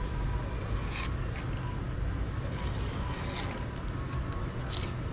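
Fillet knife drawn through a fish fillet in a few short scraping strokes, about a second in, a little after three seconds and near the end, over a steady low rumble.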